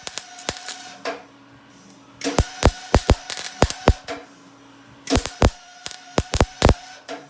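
Welder arcing on thin, worn snowmobile ski metal in three short bursts of sharp crackling pops, with a brief pause between them. The arc keeps burning through the paper-thin steel.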